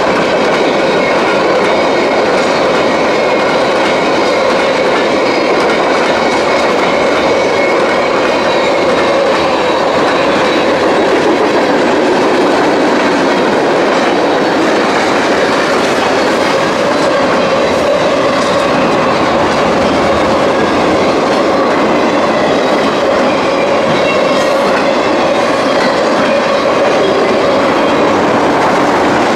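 Freight cars rolling past at speed: steady loud rumble and clatter of steel wheels on the rails, with a faint wavering squeal from the wheels.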